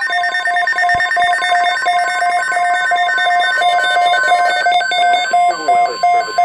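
NOAA Weather Radio emergency alert signal: rapid evenly repeating electronic alarm beeps over screeching digital alert header tones. The steady 1050 Hz weather radio warning tone comes in strongly about five seconds in.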